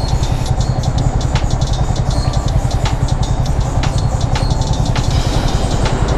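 Yamaha R15 V3's single-cylinder four-stroke engine idling steadily with a fast low pulse while the motorcycle stands still, with scattered sharp clicks over it.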